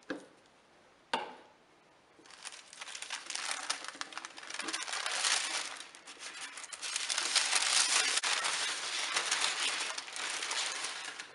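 Stack of glued white paper sandwich bags being turned over and pulled open into a fanned star, the paper rustling and crinkling from about two seconds in, loudest near the end, then cutting off suddenly. A single sharp click about a second in.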